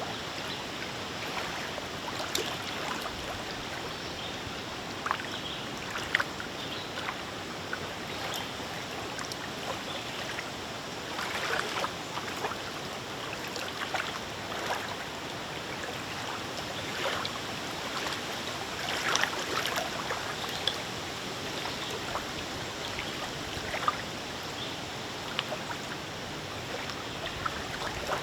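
Small wind-driven waves on a lake lapping and splashing: a steady wash of water broken by many small irregular splashes, a few of them louder.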